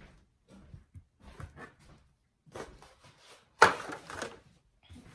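Handling noises in a kitchen: scattered crinkles and scrapes from a disposable aluminium foil pan as a brisket is lifted out onto a plastic cutting board, with one sharp knock about three and a half seconds in.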